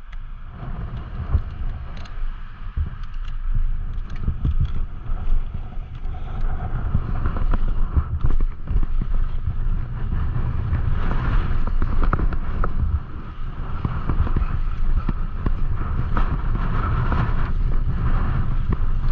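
Wind buffeting the microphone in a strong gusting wind, over a mountain bike rolling fast down a loose dirt trail, with frequent clicks and knocks from the bike and stones. The trail noise grows louder from about a third of the way in.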